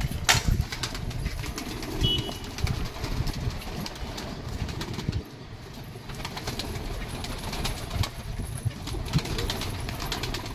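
Pigeons in a wire-mesh loft flapping their wings as they are disturbed, with cooing and scattered clicks and knocks.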